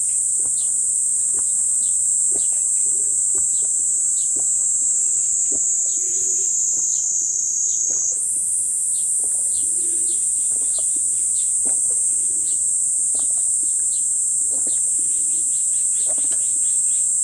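Steady, high-pitched chirring of insects, with a man gulping soup from a large glass in a run of swallows every second or two.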